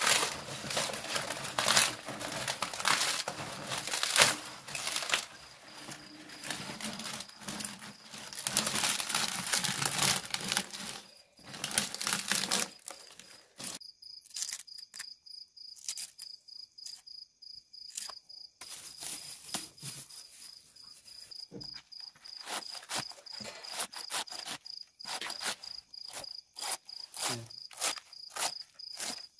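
Fresh banana leaves rustling and crinkling as they are pressed down over a clay cooking pot. After about 13 seconds this gives way to a large knife shredding a cabbage by hand, a run of sharp crisp cuts that come faster near the end, with a cricket trilling steadily behind.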